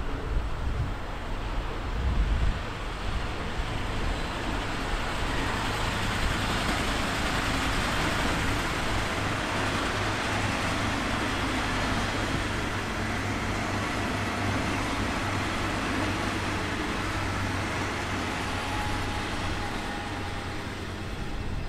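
A train running through a station: a steady rolling rush with a low hum underneath, growing louder to a peak about eight seconds in and slowly easing off.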